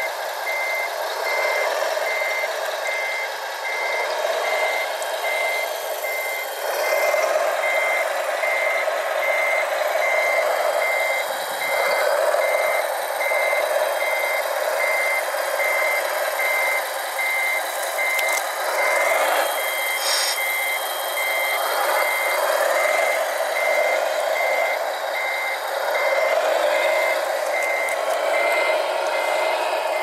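Reversing beeper of a radio-controlled construction model, a high steady beep repeating a little over once a second, over the continuous whir of the model's drive and hydraulics as it works.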